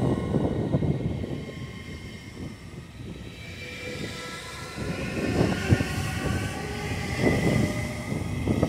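Siemens Desiro HC electric multiple unit of the Rhein-Ruhr-Express rolling past on a curve, its wheels running on the rails. The wheels knock over rail joints or points a few times in the second half. A faint high tone joins in from about halfway through.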